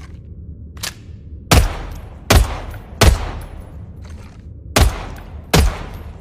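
Submachine gun sound effect: five loud single gunshots, in two groups of three and two about a second and a half apart, each with a short echoing tail. A short click comes about a second in, before the first shot, and a steady low hum runs underneath.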